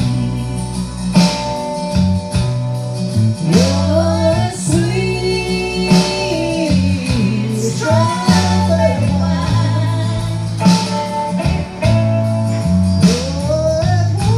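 A man singing a country-style love song into a handheld microphone over recorded backing music with guitar, the melody sliding up into long held notes.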